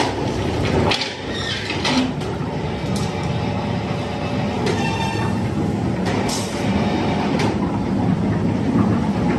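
Factory machinery running steadily, with scattered short metallic clanks and knocks and a brief ringing tone about five seconds in.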